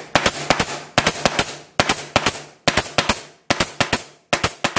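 Hitachi (Metabo HPT) pneumatic stapler firing staples into wooden bars in quick succession, about six shots a little under a second apart, each a sharp double or triple crack.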